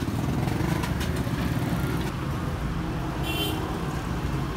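Steady low mechanical rumble, with a brief high chirp about three seconds in.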